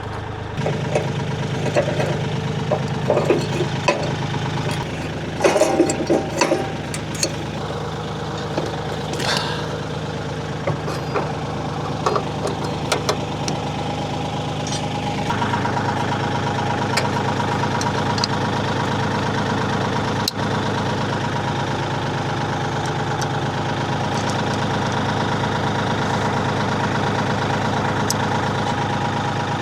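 Kioti 3520 tractor's diesel engine idling steadily, with scattered metallic clanks and knocks in roughly the first ten seconds as a PTO connection is worked into place. About halfway through the engine note changes and runs a little louder.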